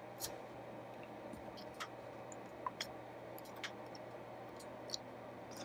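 Pushbuttons on a Blaupunkt Monterey SQR 23 car radio being pressed one after another, giving a string of faint, irregularly spaced clicks over a low steady hum. The buttons are hard to press after their pads were re-glued.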